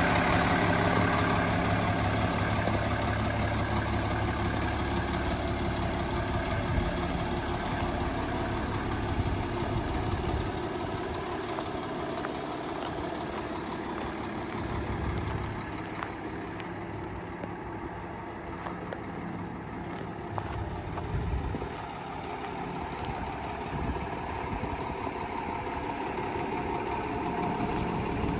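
2008 Kenworth T300 box truck's diesel engine idling.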